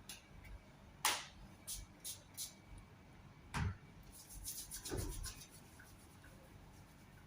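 Hands handling objects: a few short rustles, scrapes and knocks, the loudest about a second in and another a little before the middle, then a quick run of small ticks.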